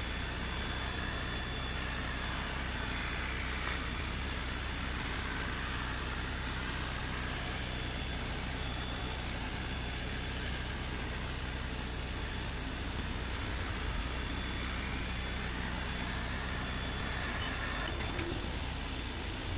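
Creality Falcon 2 22-watt laser engraver cutting plywood: a steady hum and hiss from its air assist and fans, with a faint whine that rises and falls as the laser head travels.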